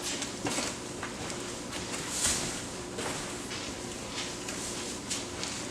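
Irregular rustling, scuffing and light knocks of square hay bales being handled and shifted, with footsteps, over a faint steady hum.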